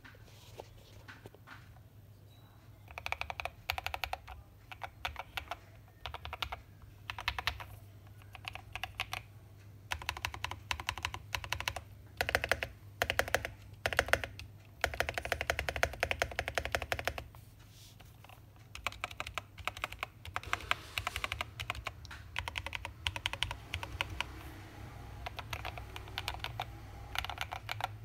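Tester 68 custom mechanical keyboard being typed on, its lubed Porcelain Blue switches and Geekark BOW keycaps clacking in fast runs with short pauses, in a case dampened with case foam, PE foam and a tape mod. The typing starts about three seconds in.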